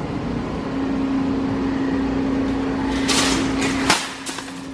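A steady low hum over background noise, then about three seconds in a brief hiss followed by one sharp metal clack and a couple of lighter rattles as a wire shopping cart is pulled from a nested row of carts.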